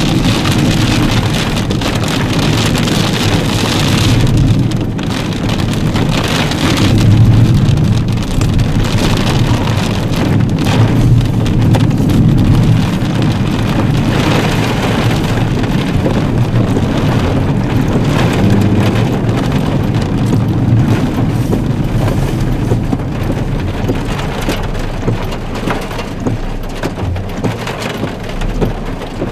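Rain falling steadily, with wind gusting into a low rumble that swells and eases.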